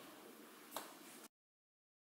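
Near silence: faint room tone with a single brief knock about two-thirds of a second in, then the sound cuts off to dead silence.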